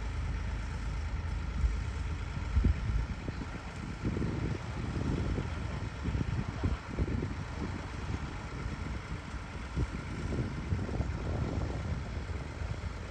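Full-size excavator's diesel engine running steadily, with irregular louder surges from about four seconds in as the machine works, and one short knock a little before that.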